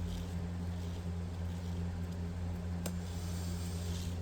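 A steady low hum, with one faint click near the three-second mark.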